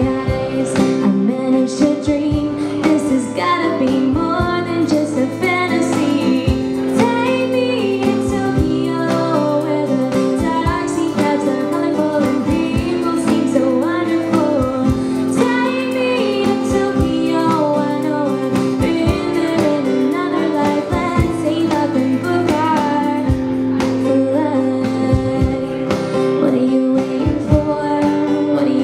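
Live acoustic folk-pop song: a woman sings lead over a strummed steel-string acoustic guitar, with a cajón slapped by hand keeping the beat.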